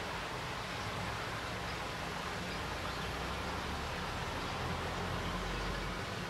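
Steady rushing background noise with a low rumble that swells slightly about five seconds in; no distinct events.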